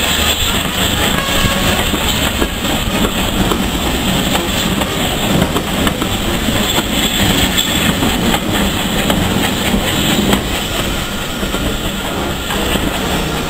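A train of railway passenger coaches rolling past close by, the wheels rumbling and clattering over the rail joints. It eases slightly near the end as the last vehicle goes by.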